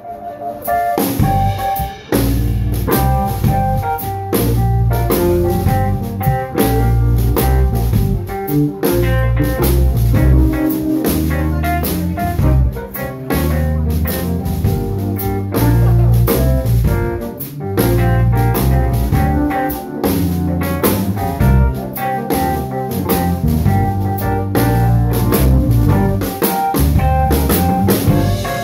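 Live blues band playing an instrumental passage with no vocals: electric bass and drum kit under an electric stage piano.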